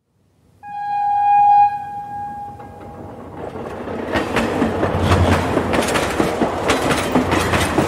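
A train horn sounds once, about half a second in, and fades away. Then the train's wheels start clattering over the rail joints, growing louder in a steady rhythm of about three beats a second.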